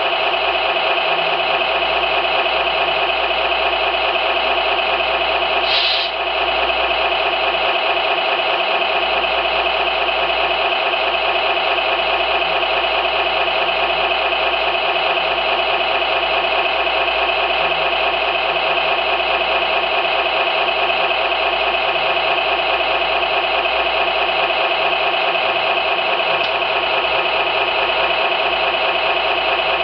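RC model sound module (SMX sound card) playing a simulated engine idling steadily through its small speaker. A short higher-pitched sound breaks in about six seconds in.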